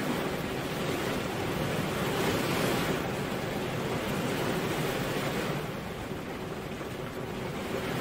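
Steady heavy rain: a dense, even hiss of falling drops, easing a little past the middle.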